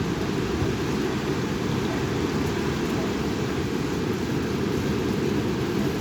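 Strong wind blowing over the microphone: a steady low rush of noise that holds at the same level throughout.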